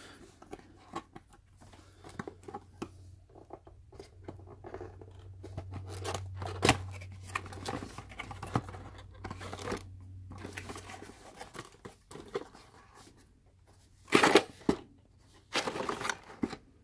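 A cardboard box being opened by hand: cardboard and paper rustling and scraping, with scattered clicks as the flaps are pried open. There are a few louder scrapes near the end as the insert is pulled out.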